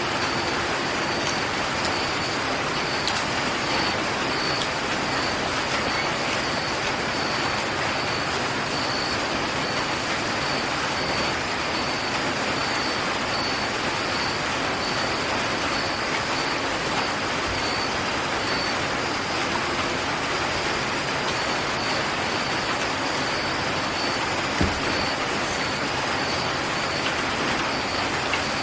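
A steady, fairly loud hiss of broad background noise, with a faint high-pitched tone pulsing on and off through most of it and a few faint clicks.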